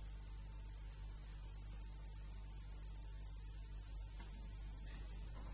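Steady electrical mains hum with faint hiss.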